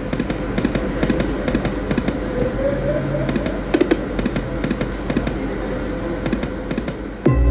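Light & Wonder Dragon Train poker machine spinning again and again on losing spins: quick runs of clicks as the reels stop, about once a second, over steady background noise.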